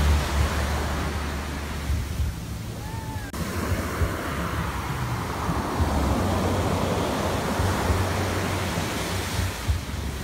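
Small sea waves breaking and washing up over sand, with wind rumbling on the microphone.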